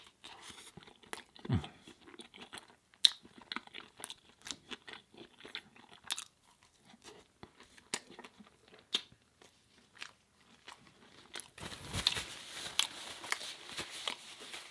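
A person chewing and biting food with crunchy, wet mouth sounds: scattered short crunches and clicks, and a denser, louder spell of crunching near the end.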